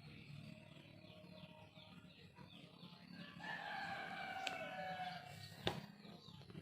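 Birds calling: a run of short, quick chirps, then a long drawn-out call of about two seconds from about halfway through, sliding slightly down in pitch. A sharp click comes near the end.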